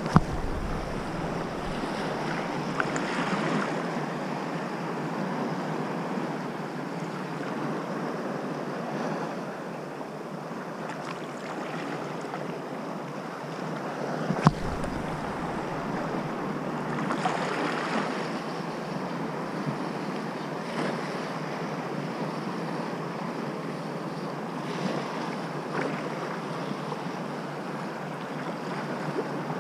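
Steady wash of sea waves with wind on the microphone. Two sharp knocks, one right at the start and one about halfway through, are each followed by a brief low rumble.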